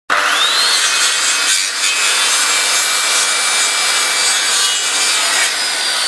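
Intro sound effect: a loud, steady rushing hiss with a thin whine that sweeps up sharply at the start and slides slowly down near the end.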